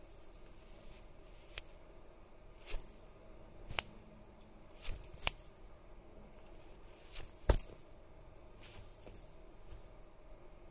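A small cat collar bell tinkling faintly on and off as the cat moves, with several short sharp clicks scattered through, the loudest about three-quarters of the way in.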